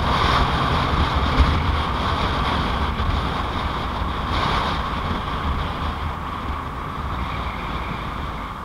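Wind rush and road noise on a microphone riding on a moving motorcycle, with a low rumble underneath. The noise eases off gradually.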